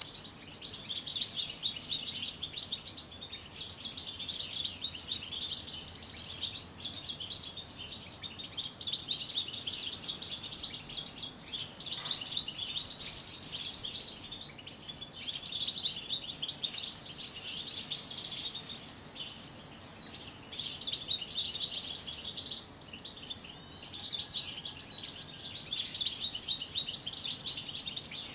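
European goldfinches singing: rapid, twittering song in phrases of a few seconds, broken by short pauses.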